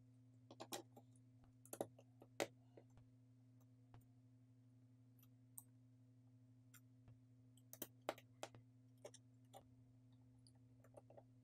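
Faint, scattered small clicks and taps as a smartphone's internal parts are set into the frame and pressed into place by hand, with a plastic pry tool touching the parts, over a low steady hum.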